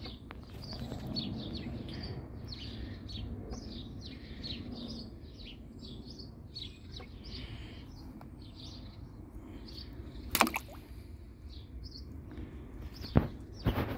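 Small birds chirping over and over, short high calls several times a second, over a low rumble. A sharp knock about ten seconds in and two more near the end stand out above the chirping.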